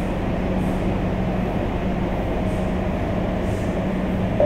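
Madrid Metro Line 10 train running, heard from inside the carriage as a steady rumble with a low hum.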